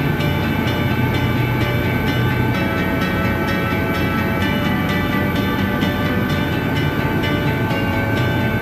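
Steady helicopter cabin noise heard from inside: the drone of the engine and rotors with a constant high whine running through it.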